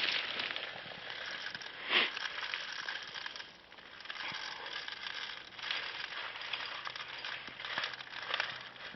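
Rustling and crackling, as of someone moving through dry undergrowth, with scattered small clicks and one louder brush about two seconds in.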